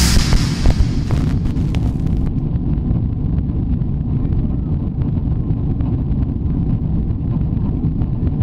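Airliner cabin noise in flight: a steady low rumble of the jet engines and rushing air.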